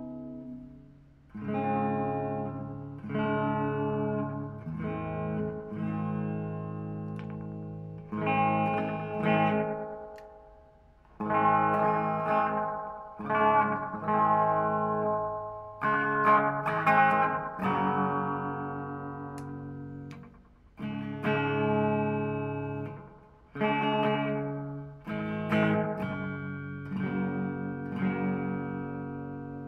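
Electric guitar, an Epiphone Les Paul Standard played through a Marshall Origin 20 valve head and a 2x12 cabinet, playing a series of chords, each struck and left to ring and fade.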